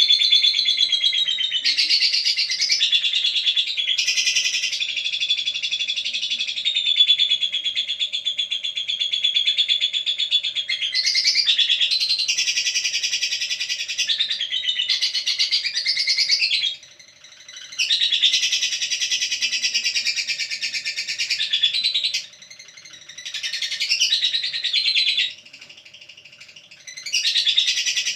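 Lovebird chattering: a continuous, high-pitched, rapid twittering, broken by a few short pauses in the second half.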